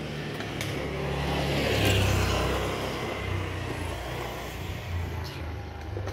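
A motor vehicle passing on the street, growing louder to a peak about two seconds in and then fading, over a steady low engine hum.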